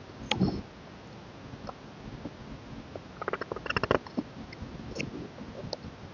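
Hands handling K-pop album packaging and its contents: scattered sharp clicks and light rustles, with a quick run of clicks and taps about three to four seconds in.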